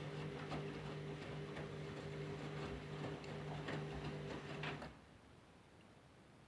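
Candy Grand'O Vita 7kg washing machine tumbling a rinse load: the drum motor hums steadily while the wet laundry and water knock and splash irregularly. About five seconds in, the motor stops and the drum comes to rest.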